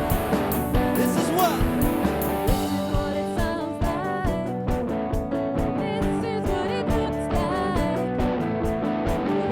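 Live worship band playing a song with drums and guitar; a singing voice comes in about three seconds in.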